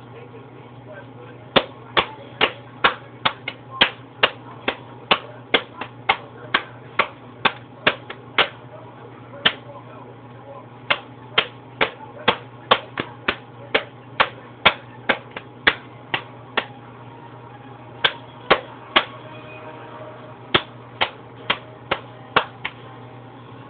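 Repeated sharp taps or knocks, about two to three a second, in runs broken by short pauses, over a steady low hum.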